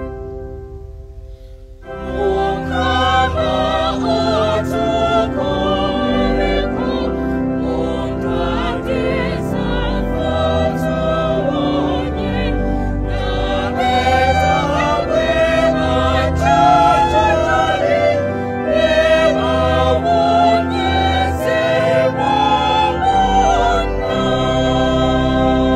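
Background music with a choir singing over steady bass notes; it dips briefly at the start and comes back in fully about two seconds in.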